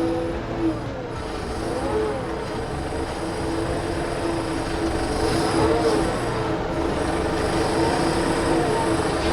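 Compact tractor's engine running under load, with a whining tone from the loader hydraulics that rises and falls in pitch as the front-loader mechanical grapple is worked to grab a log. It gets a little louder after the middle.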